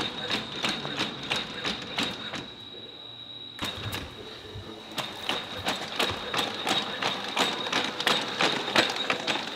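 Ghost Robotics Vision 60 quadruped robot walking on concrete: a quick, even run of clicking footfalls, about three to four a second, over a steady high-pitched whine. Both drop away for about a second near three seconds in, then resume.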